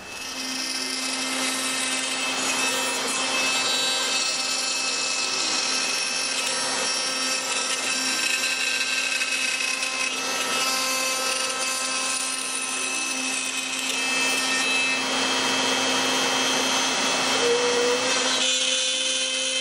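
An X-Carve CNC router spinning a 1/8-inch straight flute bit and cutting out circles in a wooden blank. It runs as a steady high whine with a rasping cutting noise, which thins out near the end.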